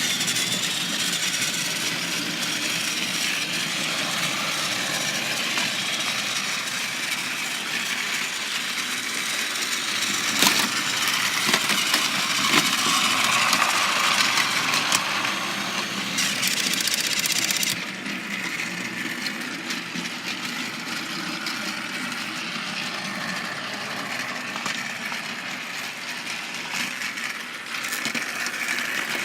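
Two battery-powered Trackmaster toy trains run together on plastic track, their small electric motors whirring and their wheels rattling steadily. About two-thirds of the way through the sound drops and loses its highest part.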